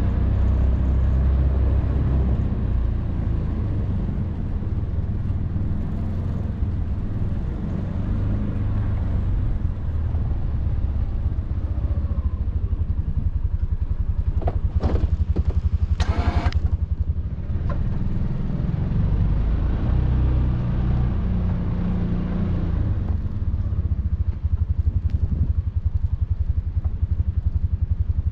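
Can-Am Defender side-by-side's engine running steadily with a fast low pulsing beat. A few short scraping or clattering sounds come just past the middle.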